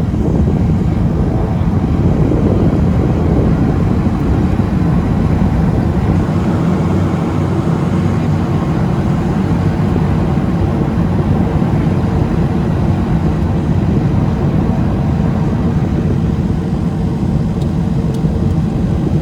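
Beechcraft King Air's twin turboprop engines and airflow making a steady, even drone with a low hum that does not change.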